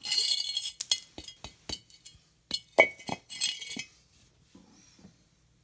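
Broken pieces of glazed porcelain toilet clinking and clattering as shards fall and knock together. There is a dense rattle at the start, then scattered sharp clinks, and a heavier knock with another clatter about three seconds in.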